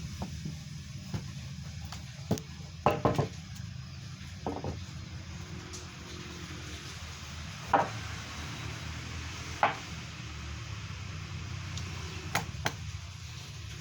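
Irregular wooden knocks and taps, a few seconds apart, with a short flurry about three seconds in. They come from work on a timber door frame, over a steady low hum.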